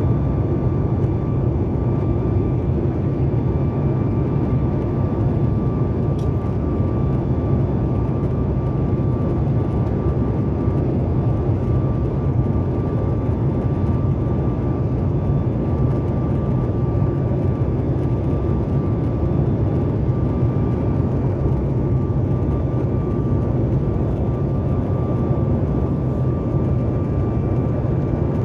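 Boeing 737 MAX 8 cabin noise heard beside its CFM LEAP-1B engine in flight: a steady, deep rumble of engine and airflow with a thin steady whine above it.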